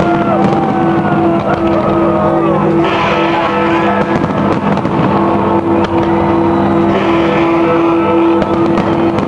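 Music with a pulsing beat at a fireworks display, mixed with scattered sharp bangs and crackles and rising and falling whistle-like glides.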